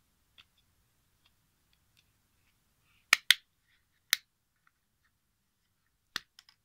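Sharp plastic clicks from a battery quartz clock movement being handled and pressed into place: two close together about three seconds in, another a second later, and one more near the end with two faint ones after it.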